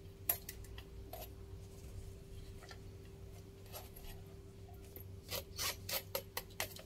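Light clicks and scrapes of a metal spoon against a wire-mesh strainer and a plastic chopper bowl as fried chilies, shallots, garlic and candlenuts are scraped in, with a quicker run of taps near the end. A faint steady hum runs underneath.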